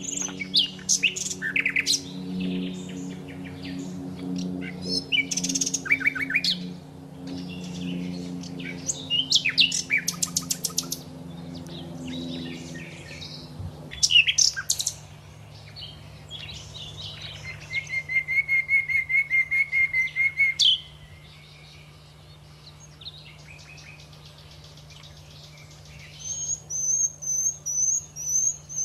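Small songbirds chirping and singing in short bursts, with a fast rapid trill about two-thirds of the way in and a run of repeated high chirps near the end. A steady low hum runs underneath, with a deeper layered drone in the first half.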